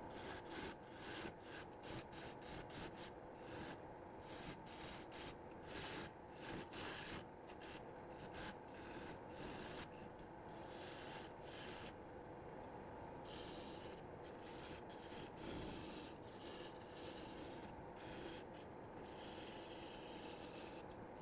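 Turning tool cutting a wooden blank as it spins on a wood lathe, roughing out the shape of a mallet: a faint, irregular scraping rasp that flickers constantly.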